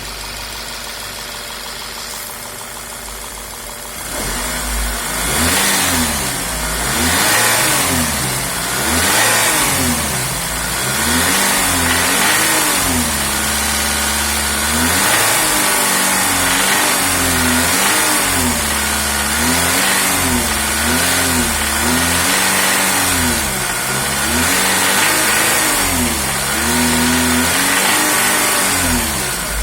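Volkswagen 1.8 TSI (BZB) four-cylinder turbo petrol engine idling, then revved up and down over and over, roughly one blip every second or two. It has a knock of unknown origin despite a freshly rebuilt bottom end; the owners suspect the camshafts, but are not sure.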